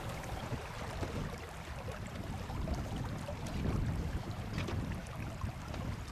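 Wind rumbling on the microphone over the steady rush of a shallow river riffle, with a few faint splashes or knocks.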